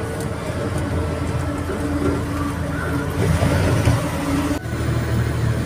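Engine running and road noise heard from inside a moving vehicle's cab, a steady low rumble. The sound changes abruptly about four and a half seconds in, as at a cut.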